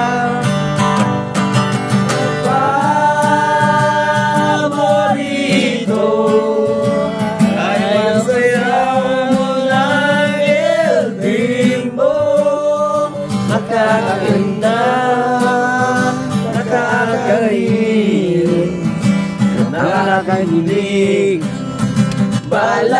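A man singing with long held notes to his own strummed acoustic guitar.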